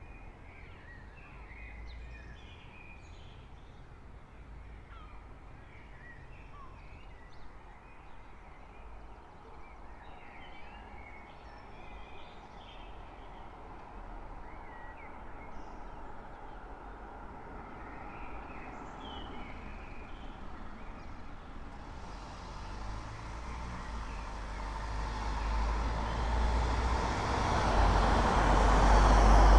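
Birds chirping over a quiet street's low background hum. About two-thirds of the way in, a road vehicle is heard approaching, growing steadily louder until it passes close at the end.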